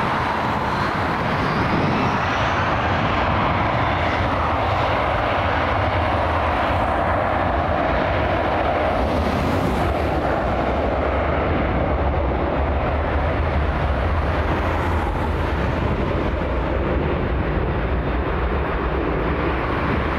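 Twin jet engines of an Airbus A321 airliner at takeoff power: a steady, loud roar as the aircraft accelerates down the runway and away.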